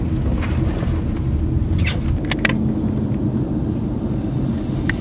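Road noise heard inside a moving car: a steady low rumble of engine and tyres, with a few brief clicks near the middle.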